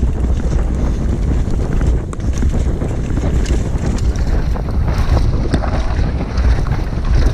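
Wind buffeting the microphone: a loud, steady rumble, with faint scattered clicks and rattles over it.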